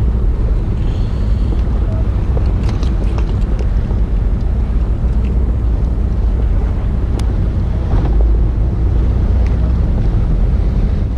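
Steady low rumble of wind buffeting the microphone on a fishing boat at sea, with a few light clicks.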